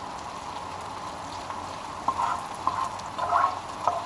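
Hash browns frying in a pan with a steady sizzle. In the second half a spatula scrapes and turns them four or five times in short strokes.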